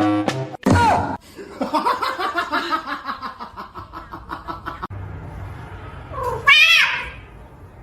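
Cat meowing and yowling: a loud drawn-out call about a second in and another near the end. Between them comes a run of rapid pulsing sounds.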